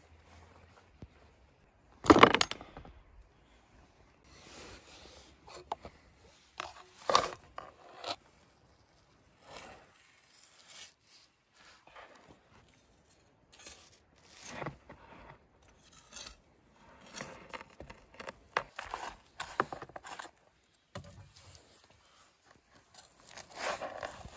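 Knife work on a wooden cutting board: scattered knocks and scrapes as tandoor-roasted lamb ribs on a metal skewer and baked potatoes are set down and cut, with a sharp knock about two seconds in. Near the end a knife scrapes along the skewer, pushing the ribs off it.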